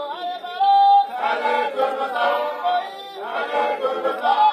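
A group of voices singing together without instruments, several parts overlapping on sustained, sliding notes.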